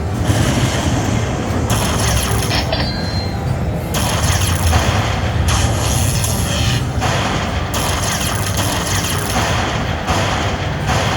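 Lightning Link slot machine playing its free-spin bonus sounds: looping game music and reel effects that change every second or two, over a low rumble.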